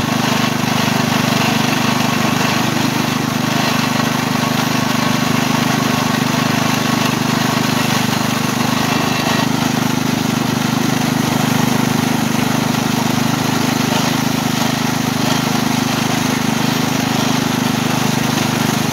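Small engine of a ride-on miniature locomotive running steadily as the locomotive travels along the track.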